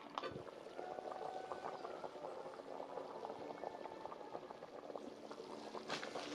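A pot of curry goat bubbling as it simmers, with a few sharper clicks near the end.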